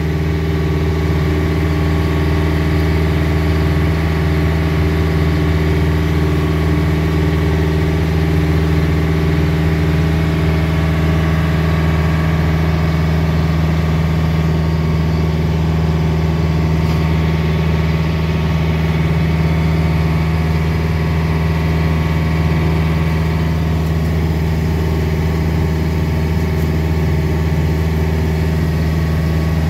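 Motorboat engine running steadily at cruising speed, with a constant low drone and no change in revs, while the hull pushes through choppy water.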